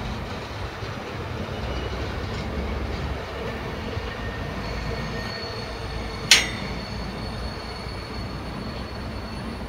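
GM diesel locomotives hauling a freight train, with a steady low engine rumble and a thin high wheel squeal joining about halfway through. A single sharp clank sounds about two-thirds of the way in.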